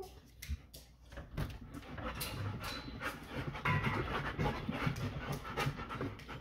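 Black Labrador retriever panting rapidly, getting louder after about a second as the dog comes right up to the microphone.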